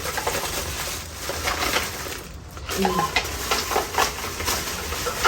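Packaging rustling and crinkling as a newly bought kitchen item is unwrapped, in a dense run of crackles that dips briefly past the middle.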